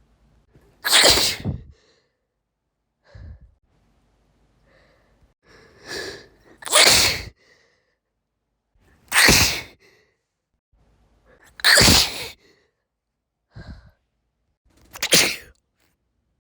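A woman sneezing repeatedly, five loud sneezes a few seconds apart, with quieter short breaths between them.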